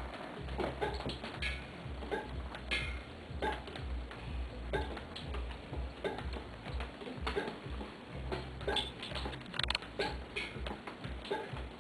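Water dripping from a leaking roof into containers: irregular ringing drips about once a second, over a low rumble.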